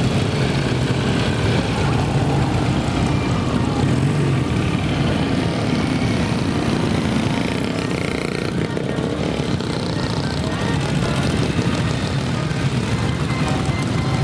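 Engines of several classic motorcycles running at low revs as the bikes ride slowly past one after another, overlapping in a steady low drone.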